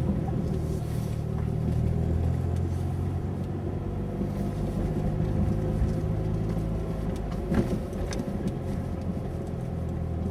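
Mitsubishi Lancer Evolution running with a steady engine hum and a constant whine, with one short sharp knock about seven and a half seconds in.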